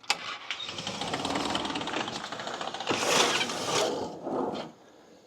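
A pile of small clips rattling and clattering as they are dumped out and shaken in a container, a dense run of tiny clicks that grows louder about three seconds in and stops shortly before the end.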